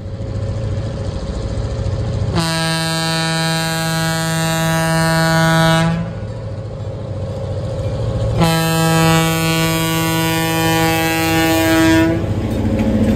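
Diesel locomotive's air horn sounding two long blasts, each about three and a half seconds long with a pause of about two and a half seconds between them, over the steady drone of the train's diesel engines as it approaches and passes.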